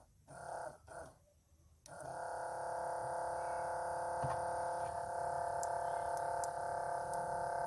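A few brief knocks, then a steady electric hum with a whine that starts about two seconds in and holds an unchanging pitch.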